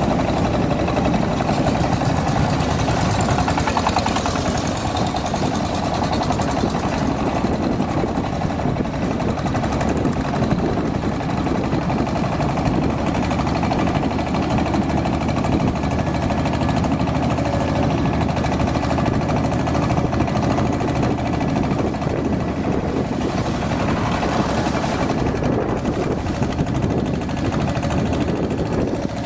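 Engine of a narrow wooden long-tail boat running steadily at cruising speed, heard from on board as a constant drone.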